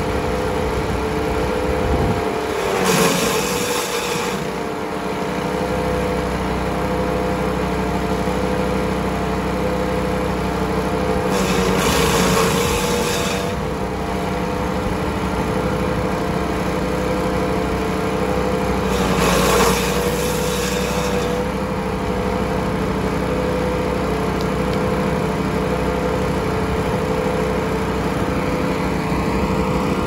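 Jonco MC40 wood chipper's 196 cc, 6.5 HP single-cylinder engine running steadily. Three times, about two seconds each, branches are fed in and chipped with a loud rasping crunch, and the engine's pitch sags briefly under the load each time.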